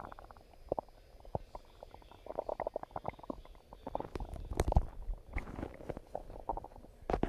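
A person's stomach growling and gurgling, recorded close up, in irregular bursts with short wet clicks. The loudest gurgle comes a little past the middle.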